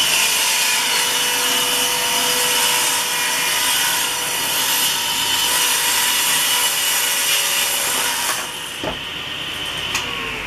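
Table saw running and ripping a thin pallet-wood board along its jig: a loud, steady blade whine and cutting noise. It eases off for the last couple of seconds as the cut finishes.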